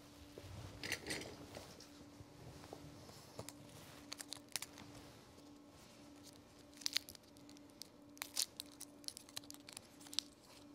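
Quiet crinkling, tearing and small clicks of acupuncture needle packaging and needles being handled, with sharper clicks about a second in and again around seven and eight seconds in. A faint low tone pulses on and off at a steady rate underneath.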